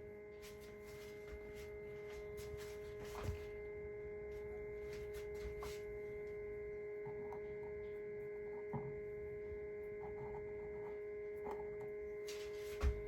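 A steady electrical hum, holding a few fixed tones, with a few light knocks from eggs and equipment being handled.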